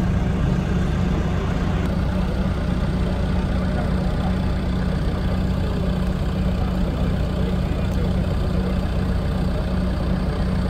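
Off-road vehicle's engine idling steadily, a low even hum with no revving.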